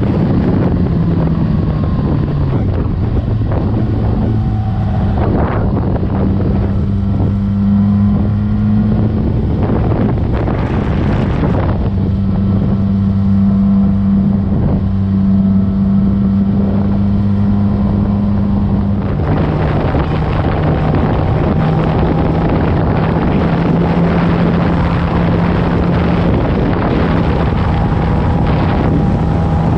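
Suzuki GSX-R1000 inline-four engine running at a steady cruise with wind rushing past the microphone. The engine note falls in the first two seconds, holds steady, and steps down again about nineteen seconds in.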